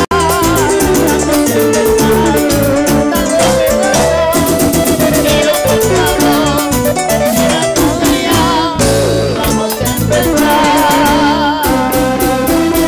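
Live cumbia band playing: a wavering electric-guitar melody with vibrato over bass and a steady percussion beat.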